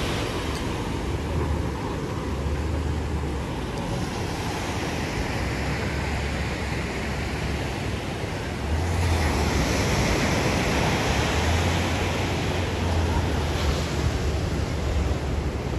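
Ocean surf breaking steadily on a sandy beach, swelling louder about nine seconds in, with gusts of wind buffeting the microphone.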